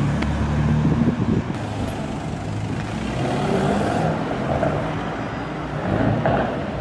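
Jaguar E-Type's straight-six engine pulling away with a steady low note, then, after a cut, a Mercedes-AMG E-Class saloon accelerating away, its engine note rising.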